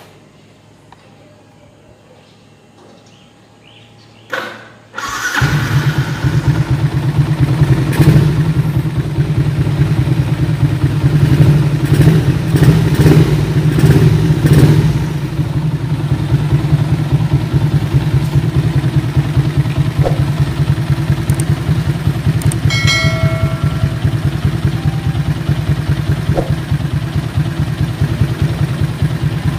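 Yamaha Sniper MX135 motorcycle engine, a single-cylinder four-stroke bored to 177cc and fitted with a Kalkal aftermarket exhaust pipe, starting after a short clank about five seconds in. It is blipped a few times, then settles into a steady idle during its morning warm-up.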